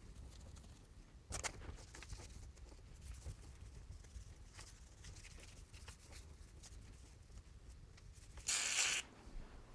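Quiet handling, rubbing and clicking on a bicycle, then one short half-second hiss of spray near the end.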